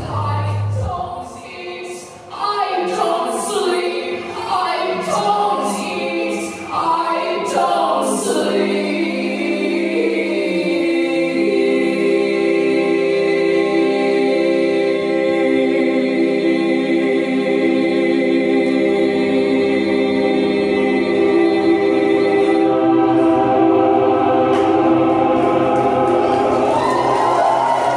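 Live singing: a woman's amplified voice moves through changing notes, then settles into a sustained, choir-like chord of several held voices from about ten seconds in. A low drone comes in near the end.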